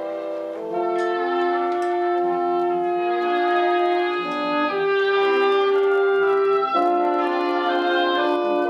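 Live orchestra playing a slow passage of long held chords, the harmony shifting every few seconds. It grows louder about a second in.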